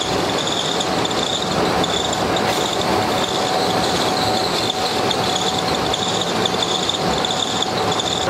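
Heavy machinery running steadily: a continuous mechanical drone with one steady tone and a high whine that pulses on and off.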